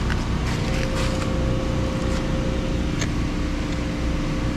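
Steady low mechanical hum at a constant pitch, like a motor or engine running without change, with a few faint ticks over it.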